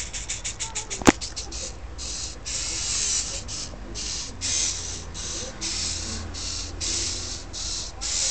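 Small tracked robot's DC gear motors whirring in short stop-start bursts, each about half a second long, with a fast stutter of very short bursts in the first second. One sharp click about a second in.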